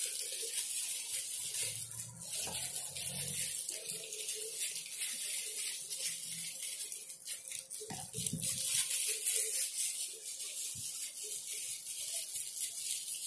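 Rustling and light clicking of Beyblade spinning-top parts and their plastic packaging being handled, over a steady hiss.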